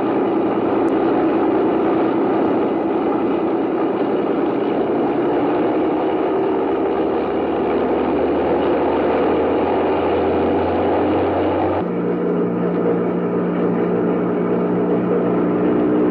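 Propeller fighter's piston engine droning steadily in flight, the Bell P-39 Airacobra. About twelve seconds in, the sound cuts abruptly to a steadier, lower-pitched drone.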